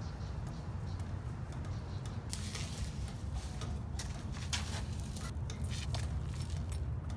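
A steady low rumble, with scattered knocks, clicks and scuffs as a heavy 20.5-25 loader tire is handled on concrete.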